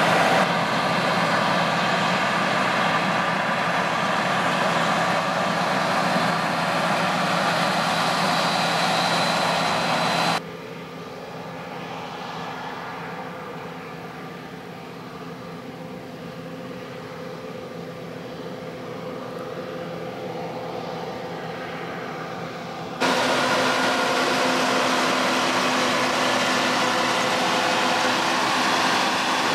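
John Deere 9540i combine harvester running steadily, its engine and machinery giving a constant hum with a few held tones. About ten seconds in the sound drops abruptly to a quieter, more muffled version, and it jumps back to full level just as abruptly about thirteen seconds later.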